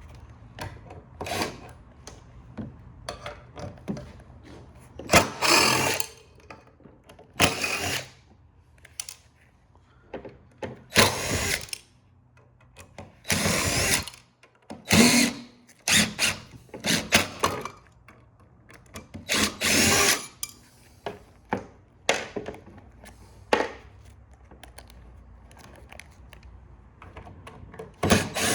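Power drill/driver backing out screws in a string of short runs, each about a second or less, with pauses and small clicks of handling between them.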